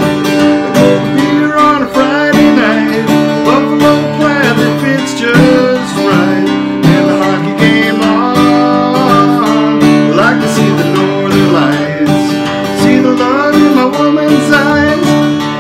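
Steel-string acoustic guitar strummed steadily, playing a country song, with a man's voice singing over it.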